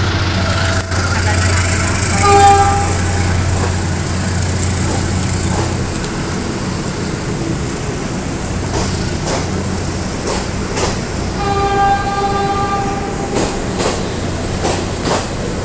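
PNR passenger train passing close by, with a steady low rumble that fades about six seconds in and wheel clicks over the rail joints in the second half. A short train horn sounds twice, about two seconds in and again about twelve seconds in, the second blast longer.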